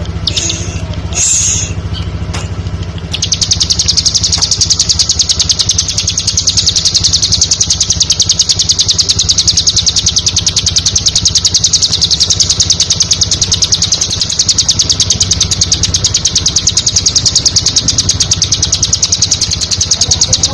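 Ciblek, a small prinia, singing: a few short high chirps, then about three seconds in a long, rapid, evenly pulsed trill that runs on without a break, over a steady low hum.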